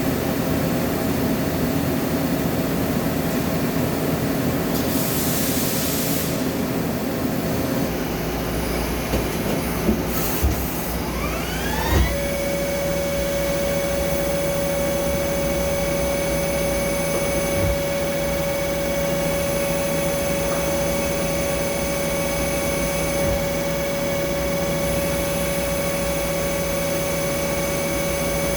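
Machine tool running steadily. About twelve seconds in, a few clicks and a quick rising whine as the motor speeds up, after which it holds a steady, higher whine.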